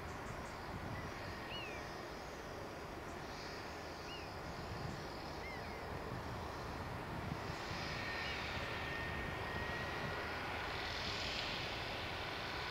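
Distant tractor engine running steadily with its hedge-cutter flail. A steady high whine comes in about eight seconds in as the flail head is brought to the hedge.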